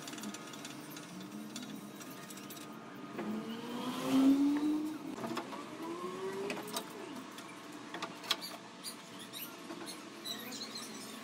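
Wooden frame creaking and squeaking as it is handled and tipped up on end, with a loud rising creak about four seconds in, and scattered knocks of wood, one sharper near eight seconds.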